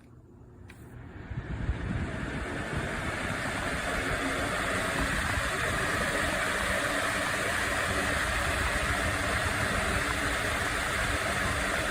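Pelonis 20-inch four-blade box fan switched on with a faint click, its air rush building over about a second, then running steadily as a loud, even whoosh.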